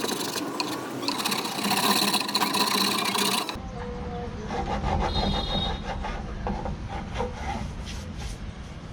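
Wood being rasped with an abrasive hand tool, a rough scraping sound that stops abruptly about three and a half seconds in, leaving a quieter low hum with scattered light taps.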